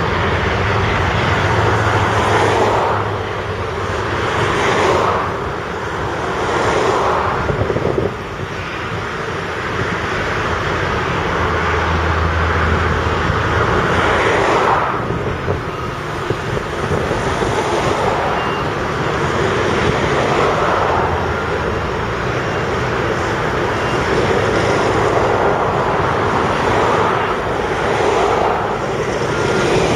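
Diesel engines of heavy earthmoving plant (articulated dump trucks, a soil compactor and a crawler dozer) running and moving on a muddy site. A steady low engine hum, with engine noise surging up and falling back every few seconds.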